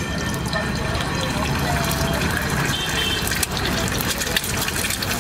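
Egg dropped into hot oil on a flat griddle, sizzling with a dense crackle of spattering oil that gets busier partway through. A steady low rumble runs underneath.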